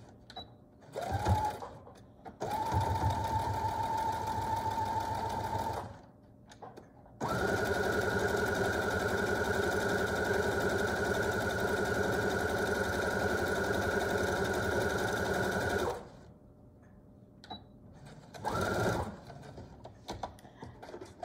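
Brother Pacesetter electric sewing machine stitching in runs: a short spurt, a run of about three seconds, then a longer, faster run of about nine seconds with a higher motor whine, and a final short spurt near the end.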